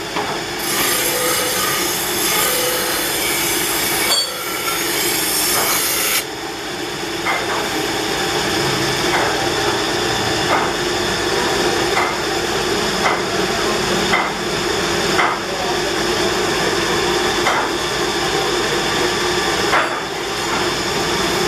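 Wire brush wheel on a bench polisher scouring a sheet-steel timbale cowbell, a harsh scraping hiss for about the first six seconds. The machine then keeps running with a steady hum, and sharp metallic knocks come about once a second.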